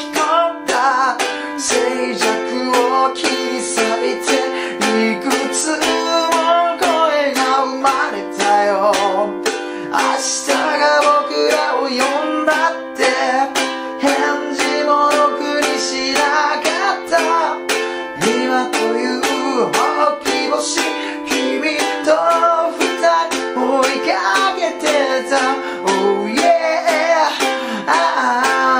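A man singing in Japanese while strumming a ukulele steadily, playing simple open chords (C, Am, Em7, F). Near the end he belts out an "Oh yeah!".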